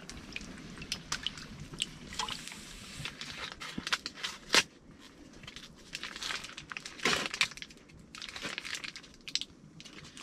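A plastic food packet crinkling and rustling as it is handled and opened with a knife, with scattered light clicks and knocks; the louder rustles come about four and a half and seven seconds in.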